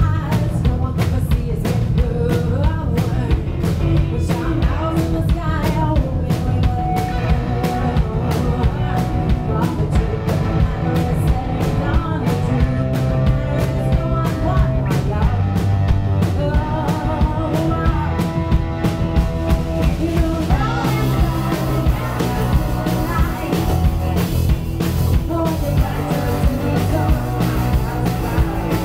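Live rock band: a woman singing over electric guitar, bass and drums. About two-thirds of the way through, the cymbals come in harder and the band fills out.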